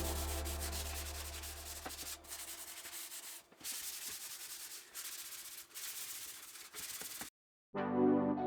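Sandpaper rubbing on the wooden bentwood chair frame by hand, in strokes about a second apart.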